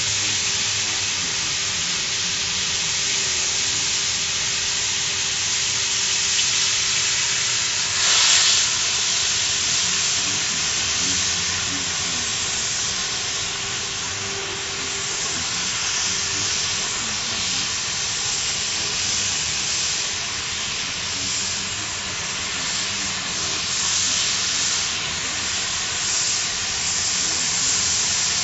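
CNC gantry profile-cutting torch cutting through steel plate: a loud, steady hiss, with a brief louder spurt about eight seconds in.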